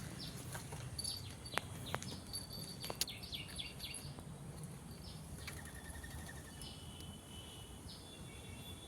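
Small birds chirping: many short high calls, a brief lower trill about halfway through, and a few sharp clicks in the first three seconds.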